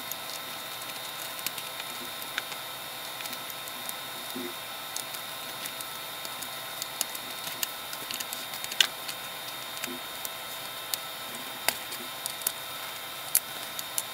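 Control knobs being fitted back onto the potentiometer shafts of a Dynacord DDL 12 digital delay unit: scattered light clicks and taps, irregularly spaced, over a steady hiss.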